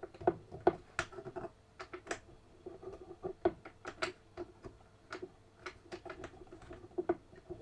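Irregular small clicks and taps of hard plastic and metal parts as an HPA cylinder assembly is worked into an airsoft sniper rifle's receiver, catching instead of seating.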